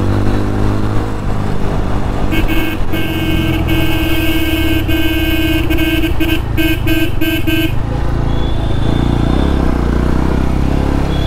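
Motorcycle engine running on the move in traffic, with a vehicle horn honking: a long blast from about two seconds in, then a quick run of short toots that stops a little past the middle.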